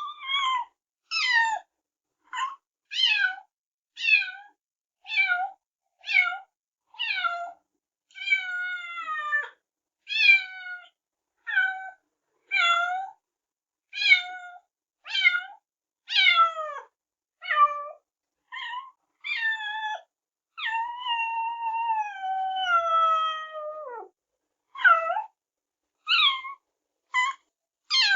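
Kitten meowing over and over, short high-pitched calls falling in pitch, about one a second, with two longer drawn-out meows among them.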